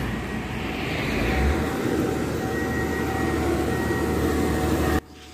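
Heavy trucks passing close by on a highway: a steady engine drone and rumble over road noise, cutting off abruptly about five seconds in.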